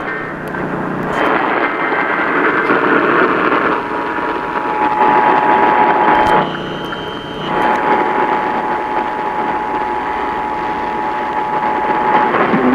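Radio static hiss, and about four seconds in an Emergency Alert System attention tone starts: a steady pitched tone held for about eight seconds over the static, cutting off shortly before the end.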